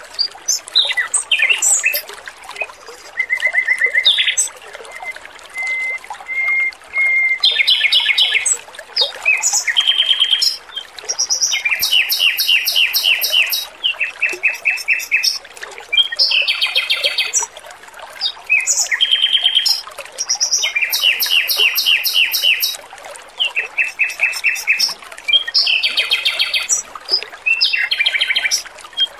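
Male Pekin robin (red-billed leiothrix) singing: phrases of fast repeated notes and trills, each a second or two long with short gaps between, over the faint steady trickle of running water.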